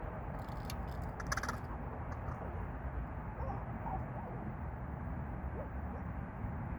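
Crows making an unusual call that their regular watcher had never heard from them before. It opens with a quick run of sharp clicks in the first second or two, followed by a few fainter calls, over a steady low background rumble.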